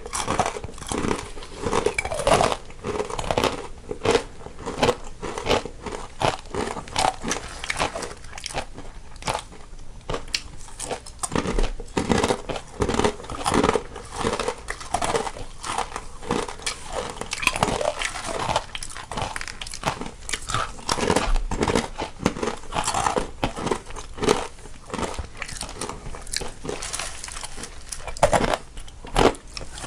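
Two people biting and chewing crunchy snacks close to the microphone, one panned to each side, in a dense run of irregular crisp crunches.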